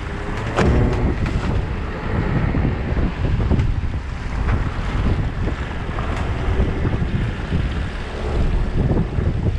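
Strong wind buffeting the microphone on a fishing boat in rough open sea, with choppy waves splashing around it.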